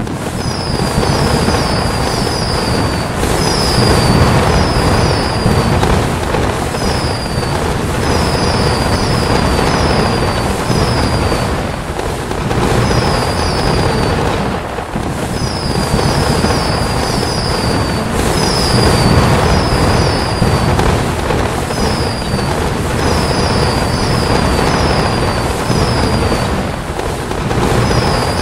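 Fireworks sound effects: a continuous barrage of bursts, booms and crackling. Short, high, falling whistles recur in clusters throughout.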